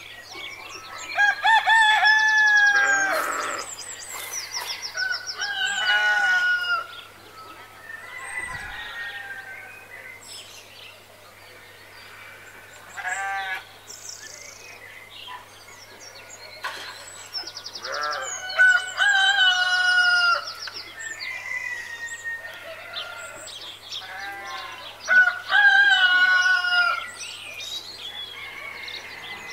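Roosters crowing about four times, each a long call that drops in pitch at the end, with shorter bird calls and chirps in between.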